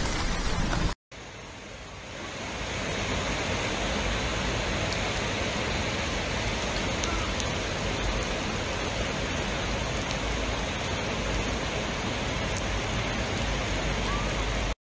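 Steady rushing of floodwater and heavy rain, an even dense hiss. It cuts out for a moment about a second in, then swells back up over the next second and holds steady.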